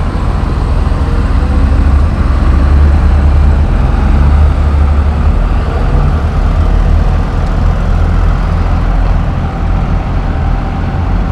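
Farm tractors' diesel engines running as a slow line of tractors drives past close by, a deep steady rumble that is loudest a few seconds in.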